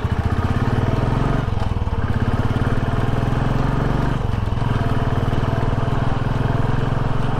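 Royal Enfield Classic's single-cylinder engine running steadily as the motorcycle is ridden along, a low, even engine note that breaks briefly twice, about one and a half and four seconds in.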